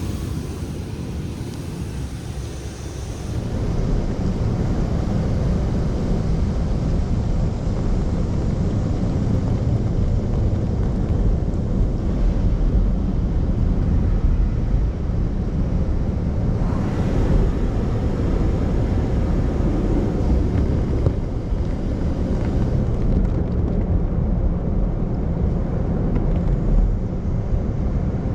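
Steady low rumbling noise of car wash tunnel equipment, growing louder three or four seconds in.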